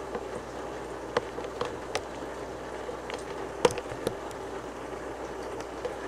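Aquarium hang-on-back filters running: a steady wash of falling, churning water, broken by a few sharp clicks, the loudest about three and a half seconds in.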